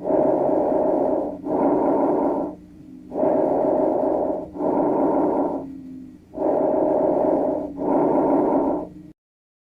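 Breath sounds recorded through a stethoscope: three breaths, each an inhalation and an exhalation of about equal length and loudness with a short pause between them. The recording cuts off about nine seconds in.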